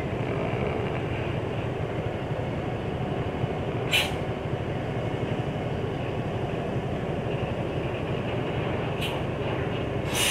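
Mercedes-Benz OH 1526 bus's six-cylinder diesel engine running steadily at low speed, with short sharp hisses of air from the air brakes about four seconds in, around nine seconds, and near the end.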